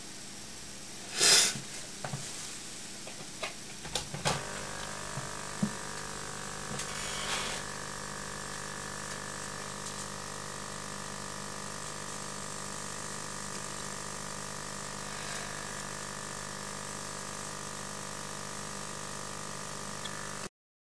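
A short, loud hiss about a second in and a few clicks, then from about four seconds in a small vacuum pump runs with a steady hum and whine, drawing air through the tube to hold polyimide film flat on a heated vacuum bed.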